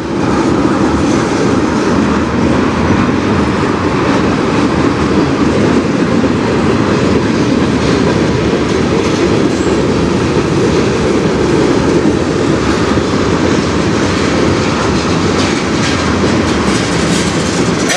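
A CN manifest freight train's cars rolling steadily past, their steel wheels running on the rails.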